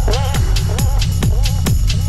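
Background electronic dance music with a steady kick drum beat, about three beats a second, and a wavering melody line over it.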